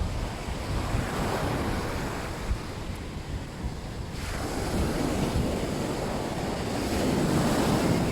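Sea waves breaking and washing up the beach, one swell about a second in and a longer, stronger one from about four seconds in, with wind buffeting the phone's microphone.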